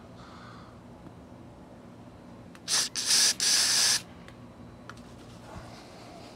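Aerosol can of Raid Max Wasp & Hornet insecticide spraying at a wasp nest in three loud hissing bursts, starting nearly three seconds in: a short one, then two longer ones.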